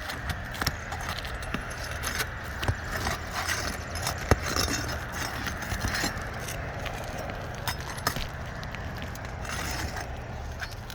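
Hand work on an asphalt shingle roof: irregular clicks, taps and scrapes of tools and stiff, brittle shingles being pried and handled, over a steady low rumble.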